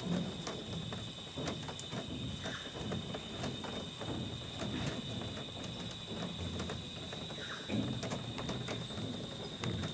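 Rainforest insects droning at one steady high pitch, with irregular light clicks and knocks scattered throughout.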